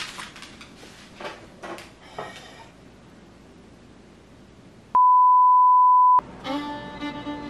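A few light clicks and taps, then a loud, steady, single-pitched beep lasting a little over a second, cut off suddenly, followed by music with strings.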